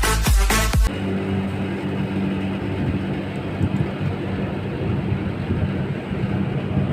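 Background dance music cuts off about a second in, giving way to the steady hum of an LG 2.5 hp air conditioner's outdoor unit running, its compressor and fan started after the repair.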